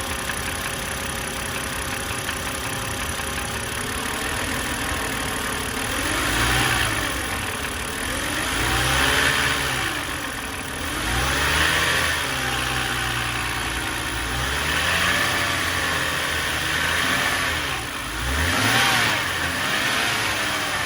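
BMW N52 straight-six engine in an E91 325xi idling and being revved briefly several times, the pitch rising and falling with each blip. A knock runs in the engine that the owner suspects is either a failing AC compressor or rod knock.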